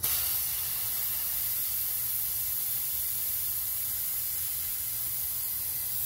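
Compressed air from an air compressor line hissing steadily as it is fed into a homemade paint-can smoke machine, pushing baby-oil smoke out through its hose. The hiss comes on suddenly and holds level.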